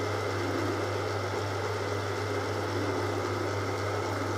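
Metal lathe running steadily, its spindle turning hex stainless steel bar stock while a facing cut with a chamfer is taken on the end of a nut. A steady low hum with even machine noise over it.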